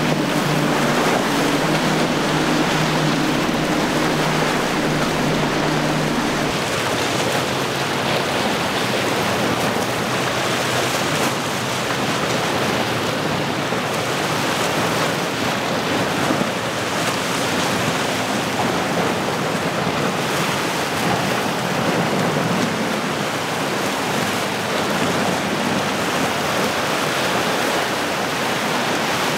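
Nor-Tech's triple Mercury Racing 450 hp outboards running at speed over rough water, under the rush of spray and waves. About six seconds in the engine tone drops away, leaving mostly the steady noise of surf and hull spray with a fainter outboard engine.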